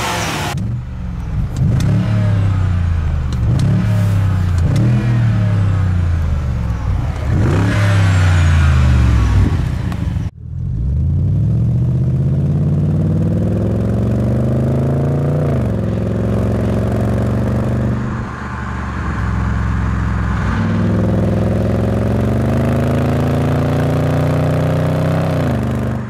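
BMW 645Ci's 4.4-litre N62 V8 is blipped repeatedly, the revs rising and falling several times in quick succession. After a cut, the engine pulls under hard acceleration, heard at the exhaust tip: the pitch climbs steadily and drops sharply at each upshift, twice.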